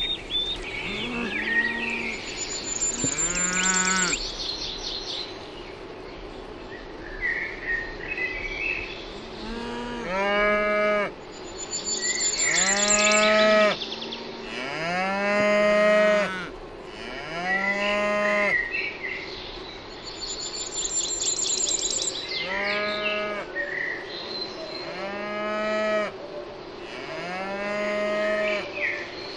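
Cows mooing again and again, one long call every two to three seconds, with a short pause about a quarter of the way through.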